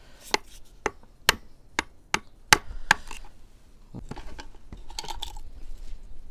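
About seven sharp taps, roughly two a second, of a hammer on the cylinder head of a Hangkai 4 hp outboard motor, knocking the stuck head loose so it can be lifted off. Quieter handling of the parts follows near the end.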